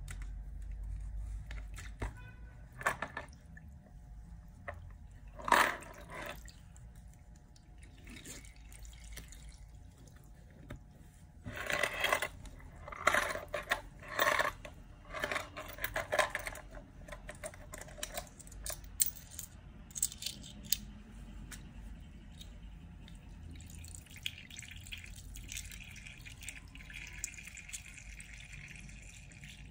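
Liquid splashing and dripping as a soaked plush teddy bear is squeezed and lifted in a glass bowl of liquid, in irregular wet bursts that are loudest around the middle.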